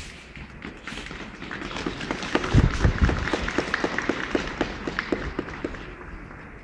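Applause from an outdoor crowd: scattered hand claps that build up about a second in, are thickest in the middle, and thin out near the end.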